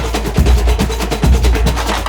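Background music with a fast, heavy drum beat: dense percussion hits over a booming bass that pulses a little more than once a second.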